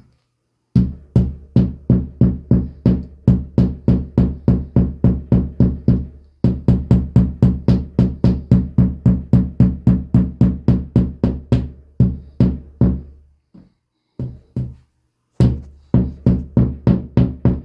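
A hammer tapping a wall anchor into a hole in the wall: quick, even strikes about three to four a second in long runs, with a short pause about four fifths of the way through before the tapping resumes.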